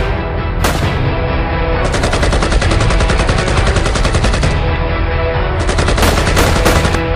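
Machine-gun fire over background music: a single shot just under a second in, a long rapid burst from about two seconds in, then a shorter burst near the end.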